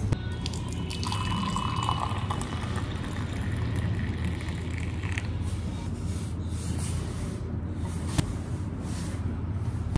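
Milk tea poured from a steel saucepan into a ceramic cup for about five seconds, the pitch of the filling cup rising as it fills. A single sharp knock about eight seconds in, over a steady low hum.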